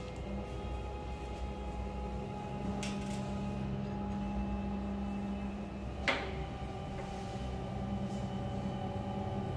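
Small metal parts of a CO2 laser cutter's laser head clicking as the head is taken apart by hand to remove the focus lens: a light click about three seconds in and a sharper one about six seconds in. A steady machine hum runs underneath.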